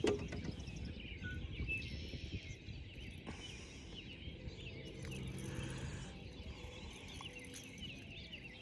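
Many birds singing at once: overlapping short chirps and trills, over a low rumble.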